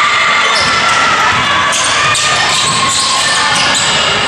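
A basketball being dribbled on a hardwood gym court during a game, with many short sharp sounds over a busy background of players and a small crowd.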